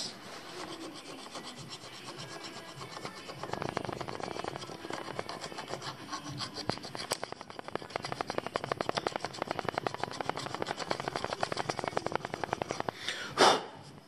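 Screwdriver working a screw in an ATV's handlebar switch housing: a fast, rasping run of fine clicks that starts a few seconds in, with a brief louder rush of noise near the end.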